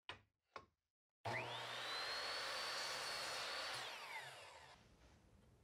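Two short clicks, then a miter saw motor starts with a rising whine about a second in and runs steadily through a cut in a wooden board. Near the end it winds down with a falling whine as the blade coasts to a stop.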